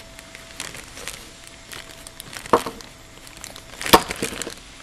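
Workbench handling noise: light rustling and small clicks as hands move among screwdrivers and a plastic parts bag, with two sharper knocks about two and a half and four seconds in, the second the louder.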